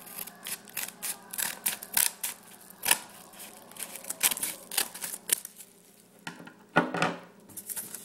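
Scissors cutting along the edge of a kraft-paper bubble mailer: a quick run of sharp snips and paper crunches, then a pause and a louder burst about seven seconds in.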